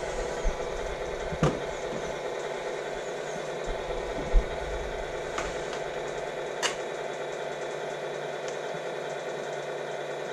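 Steady diesel-engine idle from the electronic sound unit of a Tamiya Mercedes-Benz Arocs RC truck, with a few sharp clicks in the first seven seconds.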